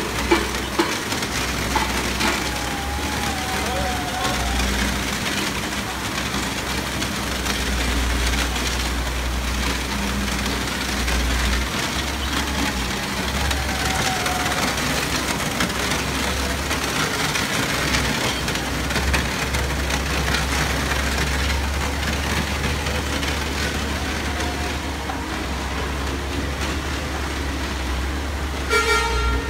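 Kaolin sand-separating machine running: a steady low motor hum under a constant rushing, grinding noise of wet sand and slurry being worked. A short pitched sound cuts in near the end.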